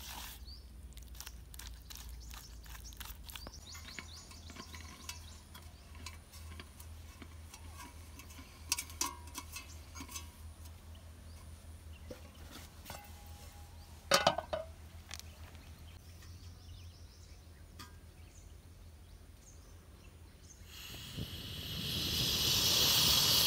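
Faint scattered clicks and clinks of a metal portable camp stove being handled, with a short louder knock about two-thirds of the way in. Near the end a rising hiss of gas from the stove's burner, as it is readied to be lit with a match.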